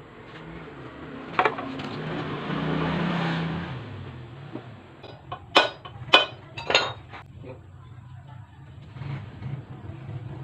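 Sharp metal clinks of engine parts and tools being handled, three in quick succession about six seconds in, after a swell of rushing noise that builds and fades in the first few seconds.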